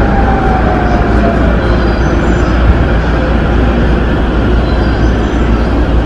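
Electric commuter train running, heard from inside the carriage: a steady rumble of wheels on rails, with a whine that falls in pitch over the first second or so.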